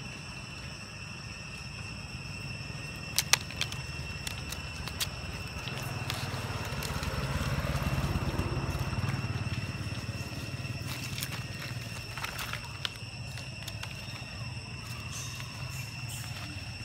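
A motor vehicle passing by, its low rumble rising to its loudest about eight seconds in and then fading, over a steady high insect drone; a few sharp clicks about three seconds in.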